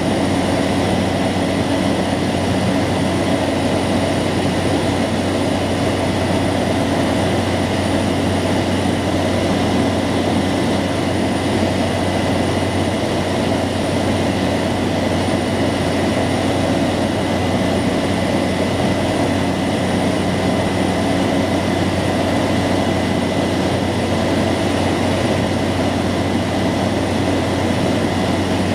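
Cabin noise of a Cessna 208 Caravan climbing out after takeoff. Its single PT6A turboprop engine and propeller make a loud, steady drone: a deep propeller hum under a constant high turbine whine, with no change in pitch or level.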